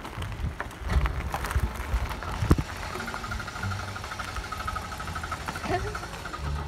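Car tyres crunching slowly over gravel as an MGB roadster is towed on a rope, with a low, steady engine hum from the towing Land Rover. The crunching is busiest in the first half.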